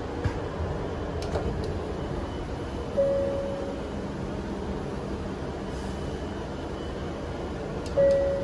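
Steady running rumble of an E7 series Shinkansen heard from inside the car, with a few light clicks in the first couple of seconds. A short single-pitch tone rings and fades about three seconds in and again near the end.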